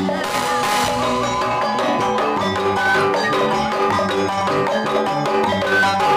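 Gamelan accompaniment: struck metal keyed instruments ringing in an interlocking pattern over drums, playing steadily.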